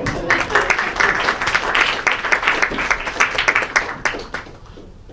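Audience applauding, dense clapping that thins out and stops about four and a half seconds in.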